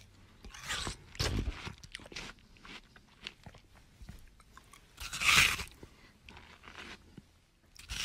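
Close-miked crunching and chewing of food, with crackly bites and a louder crunch about five seconds in.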